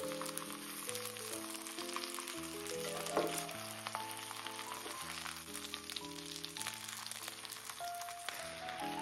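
Food sizzling and crackling in hot oil in a frying pan, with steady fine crackles throughout, under background music with a stepping melody. A brief knock sounds about three seconds in.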